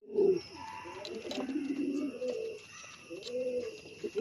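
Fancy pigeons cooing: a string of low, wavering coos, with a few faint clicks.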